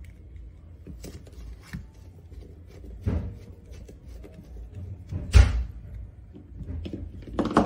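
Handling noises from a plastic scooter display housing and its circuit board being pressed and shifted by hand, with scattered light knocks; the loudest knock comes about five seconds in and another near the end.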